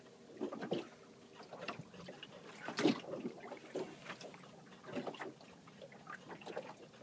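Water lapping and slapping against a small boat's hull in irregular splashes, one louder slap about three seconds in.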